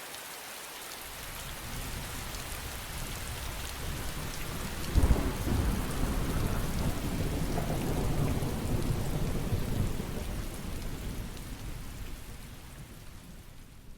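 Steady rain with a long low rumble of thunder starting suddenly about five seconds in and rolling on for several seconds, the whole storm fading out near the end.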